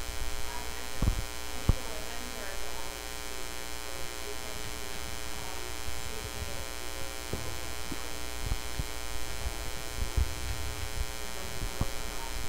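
Steady electrical mains hum and buzz in the recording, with a few short low thumps, the clearest two about a second in.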